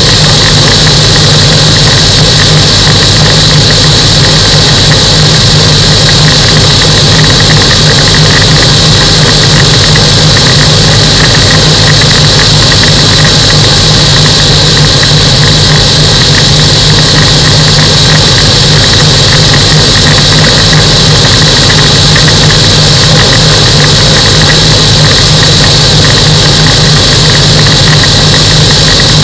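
Microlight aircraft engine and propeller running steadily at a constant setting: a loud, unchanging drone with a steady high-pitched whine over it.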